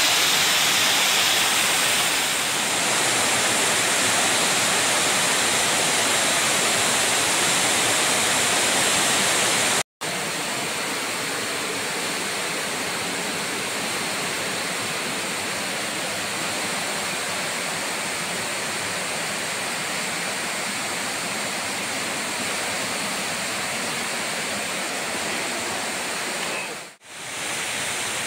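Waterfall rushing over rocks, a loud, steady hiss of falling water. It cuts out for an instant about ten seconds in and dips briefly near the end.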